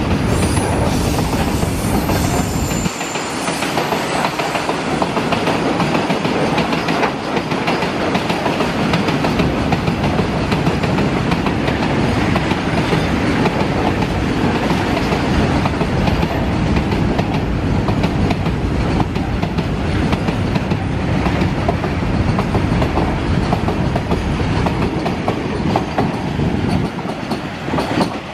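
Long freight train of loaded flat wagons rolling past close by, a steady loud clatter of wheels on the rails. The last wagons and the brake van pass near the end.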